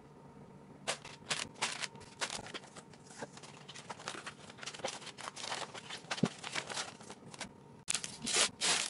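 Clear plastic kit bags crinkling and rustling in the hands in quick irregular crackles, along with paper rustle as the instruction manual is handled. Near the end a small clear plastic bag crackles louder as it is pulled open.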